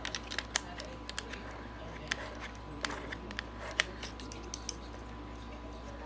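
Scattered light clicks and taps of a cockatoo's beak working at the plastic faucet of a bird sink, over a faint steady hum.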